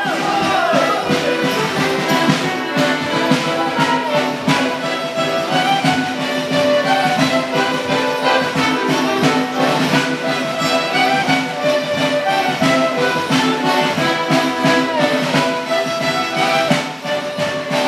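Live folk band playing a Morris dance tune on fiddle, button accordion, clarinet and drum, with a steady beat.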